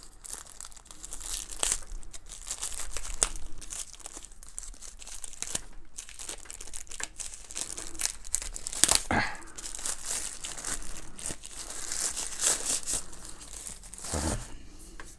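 Plastic wrapping bag crinkling and tearing as it is pulled open and off a small speaker, in irregular crackles.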